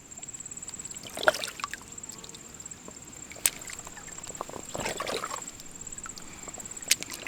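Creek water sloshing and trickling as a water bladder is filled, swelling twice, with a couple of sharp clicks. Under it runs an insect's steady, high-pitched pulsing trill.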